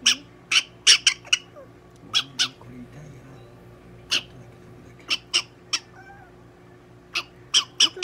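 Prairie dog giving short, sharp squeaks again and again while restrained, often two or three in quick succession.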